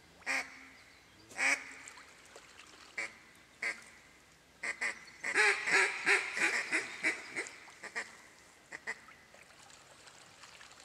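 Duck quacking: a few single quacks spaced about a second apart, then a quick run of quacks about halfway through, then a few fainter ones near the end.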